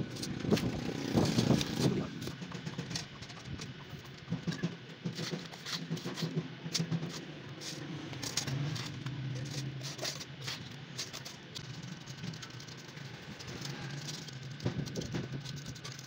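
Small trowel scraping and tapping against a metal can and its inner metal sleeve as wet cement mix is packed between them to line a homemade furnace: a string of short clicks and gritty scrapes.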